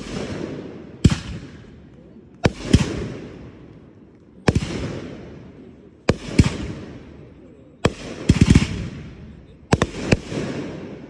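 Fireworks going off in quick succession: about a dozen sharp bangs, mostly one every second or two and sometimes in close pairs, each trailing off into a fading hiss, with a rapid cluster of bangs about eight seconds in.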